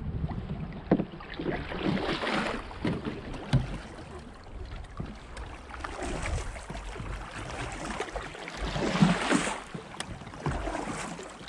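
Kayak paddles dipping and splashing in moving river water, swelling twice, with a few short sharp knocks against the kayak hulls.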